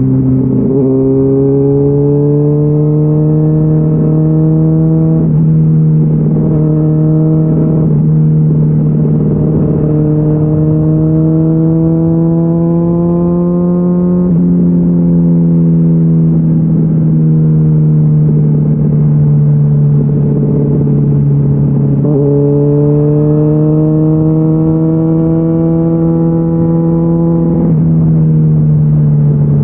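Honda CBR600RR inline-four sport bike running through a GPR Deeptone exhaust with the dB-killer removed. The engine note climbs under acceleration and drops sharply at two quick gear changes early on. It eases down through the middle, then climbs again and drops near the end.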